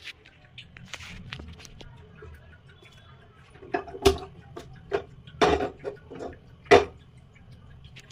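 Kitchen utensils being handled: scattered clicks and knocks, with three louder knocks about four, five and a half and nearly seven seconds in.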